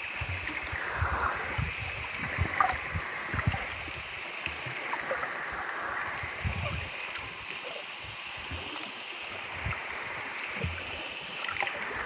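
Muffled underwater ambience picked up by a submerged camera: a steady water hiss with irregular low thumps and scattered faint clicks.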